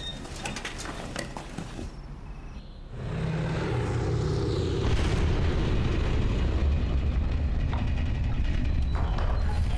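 A deep, continuous rumble swells in about three seconds in and then holds steady and heavy. It is the distant bombardment that opens the war, which is taken at first for thunder but is not thunder.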